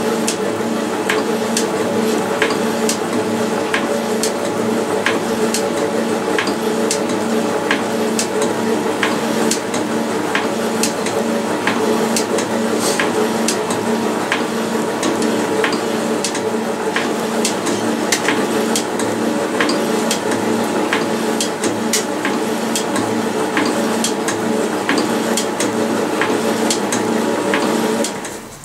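Metal shaper running and cutting a steel plate: a steady motor hum with a sharp click roughly once a second. It fades out near the end.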